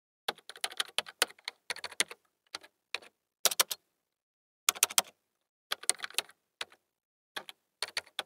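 Typing sound effect: quick clusters of sharp key clacks in irregular bursts, separated by short pauses.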